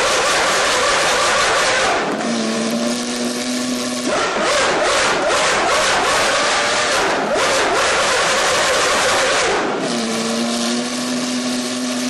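High-performance car engine and exhaust, loud and rough at high revs, with two stretches where it settles into a steady held note, about two seconds in and again near the end.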